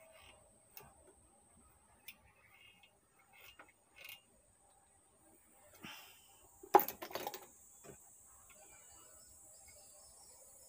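Scattered small clicks and taps of a hand tool and component leads as power MOSFETs are fitted onto an amplifier's heatsink board, with a louder brief clatter about seven seconds in.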